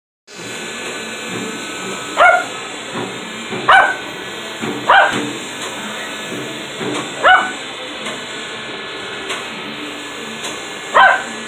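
Small dog barking five times, spaced a second or more apart, at a toy RC helicopter flying close by. Under the barks runs the steady whine of the helicopter's small electric motor and rotor.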